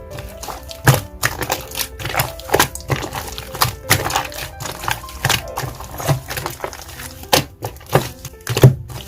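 Slime mixed with snow clay being squeezed and pressed by hand, giving off irregular sharp clicks and pops several times a second, over background music.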